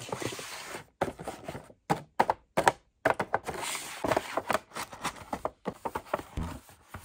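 Cardboard gift boxes being handled on a tabletop: a quick run of knocks, taps and rustles, broken by a few short silences in the first three seconds.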